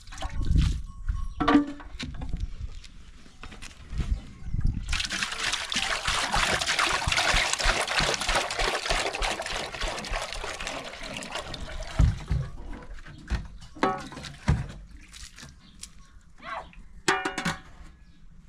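Water poured from a plastic jerrycan into a metal cooking pot, a steady splashing pour lasting about seven seconds, starting about five seconds in. Before the pour and after it, the pot and its metal lid knock and clank as they are handled and the lid is set on.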